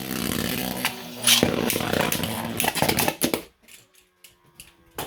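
3D-printed Beyblade spinning tops whirring and rattling as they scrape and clash in a stadium, with sharp knocks of collision. After about three seconds the racket drops away to scattered clicks and a faint steady spin hum that sinks slightly in pitch as one top keeps spinning.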